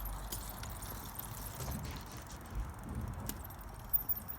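Carrera Hellcat mountain bike ridden on tarmac for a wheelie attempt: low tyre rumble with chain rattle and scattered light clicks, and a sharper clank about four seconds in.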